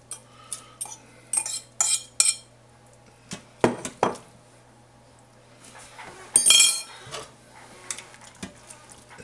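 A spoon clinks and scrapes against the stainless steel inner pot of an Instant Pot as shredded chicken is tipped in and stirred into the rice. The separate clinks come irregularly, with one louder ringing clang about six and a half seconds in.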